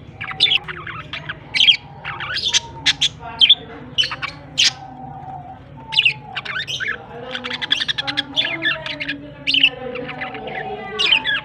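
Pet budgerigars chirping and squawking: many short, high calls in quick succession, with lower warbling notes beneath.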